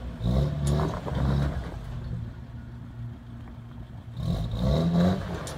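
Lifted Toyota 4x4's engine revving under load as it crawls up a steep rock slab. It swells in two bursts, about half a second in and again about four seconds in, and settles to a low steady run between them.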